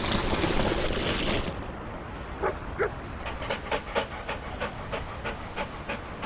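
A dog panting quickly, about three breaths a second, after a louder hissy noise in the first second and a half.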